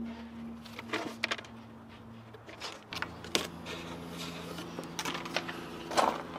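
A few scattered light clicks and taps of handling, over a steady low hum.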